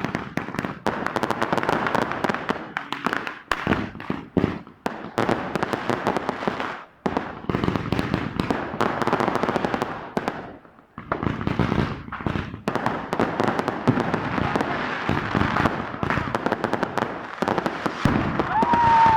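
Fireworks and firecrackers going off in dense, irregular volleys of sharp cracks and bangs, with short lulls, over a crowd's voices.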